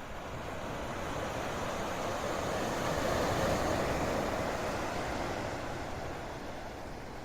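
Sea surf and wind: a rush of noise that builds to a peak about halfway through and then eases off, like a wave rolling in.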